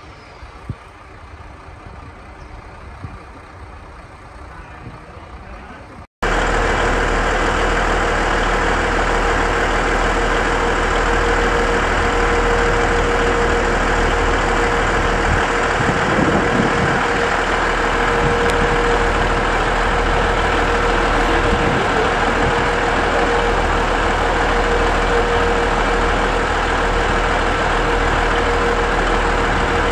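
Diesel railcar engine idling steadily, loud and close, coming in suddenly about six seconds in; before that, a quieter station-yard background with a couple of light clicks.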